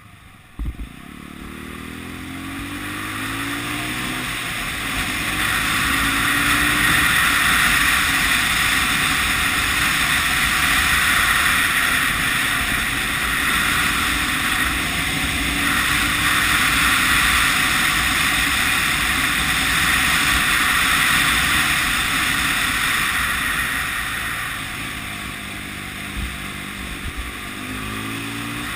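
Honda CB250RS single-cylinder four-stroke engine pulling hard with its revs rising for the first few seconds, after a short knock near the start. Then a steady rush of wind and road noise at speed largely covers the engine, and the revs rise again near the end.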